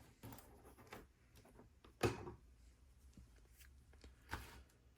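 Faint clicks and rustles of plastic LEGO pieces being handled and moved aside, with one sharper clack about two seconds in.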